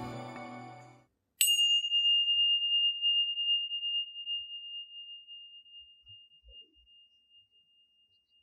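Tingsha cymbals struck together once about a second and a half in, then ringing one high, clear tone that slowly fades away.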